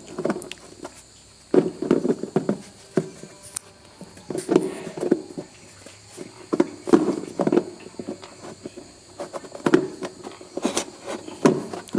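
Irregular knocks, clicks and short scrapes of hands handling washing machine spin-dryer parts while fitting a replacement rubber mount.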